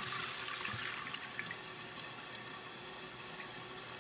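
Toilet tank refilling through a newly installed Fluidmaster universal fill valve: a steady hiss of water running into the tank.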